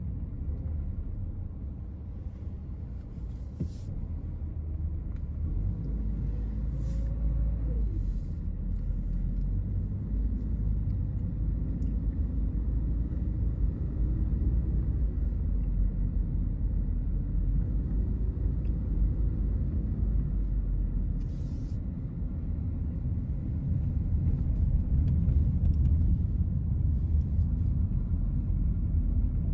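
Road noise inside a moving car's cabin: a steady low rumble of engine and tyres, with a few faint clicks.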